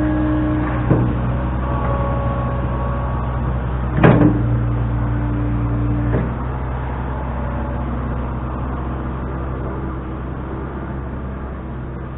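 Bucket loader's engine running steadily under work, with metallic clunks about 1, 4 and 6 seconds in, the loudest near the middle, typical of the bucket knocking as dirt is scooped and dumped.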